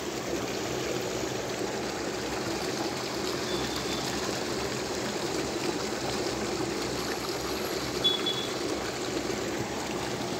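Steady rush of flowing water from a turbulent, foaming current.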